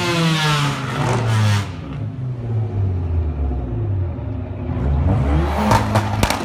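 Modified car engine revved hard, dropping back to a steady idle about two seconds in, then revved again about five seconds in. Near the end comes a quick run of sharp bangs, typical of 2-step launch-control exhaust pops.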